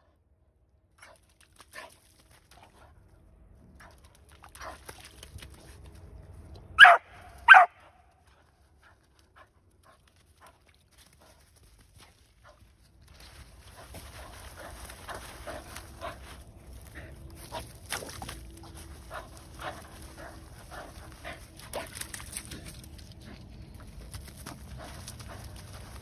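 Cattle dog barking twice in quick succession, sharp and short, about seven seconds in. From about halfway on, she digs hard in wet mud: paws rapidly scraping and flinging soil, with splashing.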